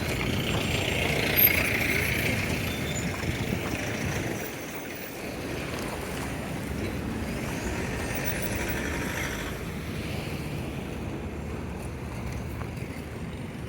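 Road traffic: engine and tyre noise from vehicles passing, loudest in the first few seconds, dipping briefly, then a steady hum.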